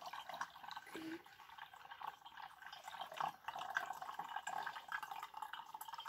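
Faint dripping and trickling of brewed coffee running from the paper filter of a Russell Hobbs filter coffee maker into its glass jug.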